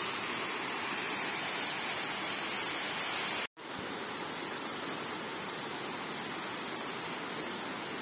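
Steady rushing of a small rain-fed waterfall cascading over rock. It cuts out for an instant about three and a half seconds in, then returns slightly quieter.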